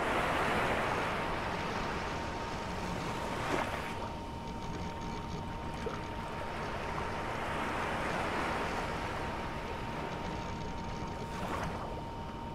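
Surf-like rushing noise of waves, swelling and ebbing slowly, with a steady thin high tone under it and a couple of brief sharp ticks.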